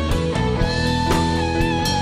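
Rock-style band music: an electric guitar plays a lead line of held, wavering notes over a steady drum beat.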